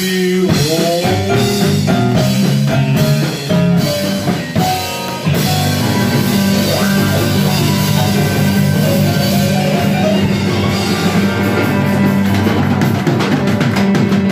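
Live blues band playing an instrumental passage with guitar and drum kit. For the first five seconds a lead line bends its notes up and down, then the full band plays densely with a steady drum beat.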